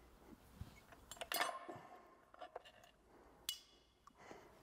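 Light metallic clinks and clicks of a steel clutch release fork and release bearing being handled and pulled off a gearbox's guide sleeve, against the aluminium bell housing. The sharpest clinks come about a second and a half in and again about three and a half seconds in.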